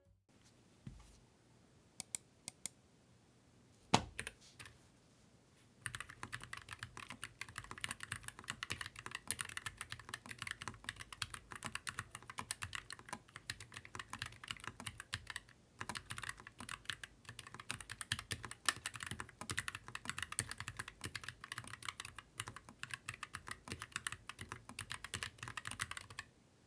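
Typing on a low-profile mechanical keyboard: a few separate key clicks, then fast, continuous typing from about six seconds in until just before the end.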